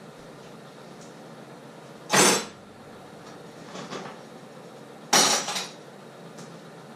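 Two loud clattering knocks of hard objects being handled, about three seconds apart, with a few lighter knocks between them.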